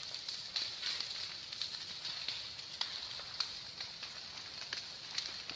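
Vegetation fire crackling: irregular sharp pops and snaps over a steady hiss.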